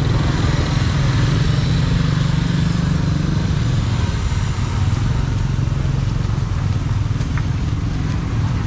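Motorbike engine running steadily close by, with a low, even pulsing hum over general street noise.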